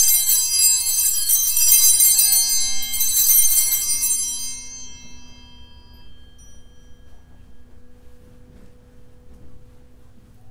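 Altar bells shaken in two jangling clusters for about four seconds, then ringing out and fading over the next few seconds; rung to signal the start of Mass.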